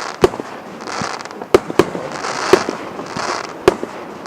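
Fireworks going off: five sharp bangs spread over about four seconds, with hissing and crackling noise between them.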